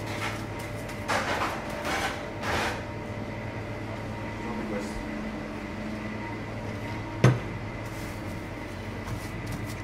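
Empanada dough being pushed and handled on a stainless steel counter: three short swishes in the first three seconds over a steady hum of kitchen machines. About seven seconds in there is one sharp knock, a metal sheet pan set down on the steel counter.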